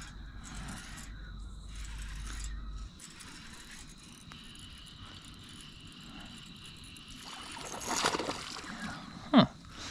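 Fish breaking the surface of calm lake water with a splash about eight seconds in, then a brief, sharp sound that falls in pitch just before the end.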